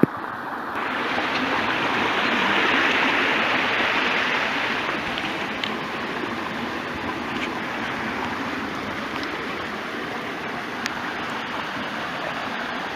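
Running stream: a steady rush of flowing water, swelling a little about two seconds in before settling.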